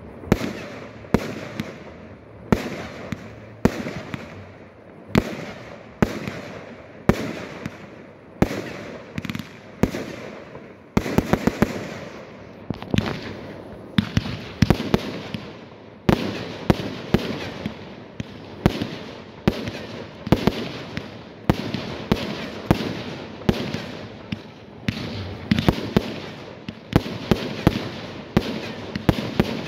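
Aerial fireworks bursting in a continuous string of sharp bangs, about one or two a second, each trailing off in an echo. The bangs come in tight clusters now and then and grow faster and denser near the end.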